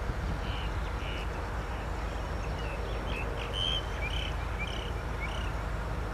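Birds giving short chirping calls, roughly two a second, over a steady low rumble from distant EMD diesel-electric locomotives.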